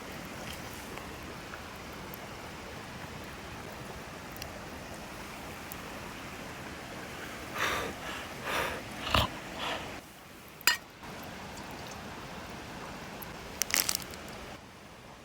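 Steady rush of a mountain stream, with a few short knocks and clinks over it, one sharp click, and a quick run of clinks near the end.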